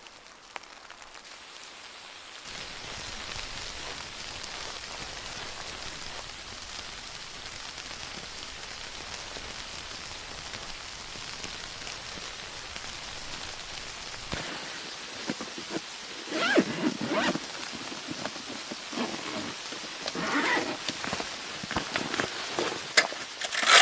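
Steady rain-like hiss of blizzard wind and driven snow. In the second half, a few short bursts of rustling and handling noise break in.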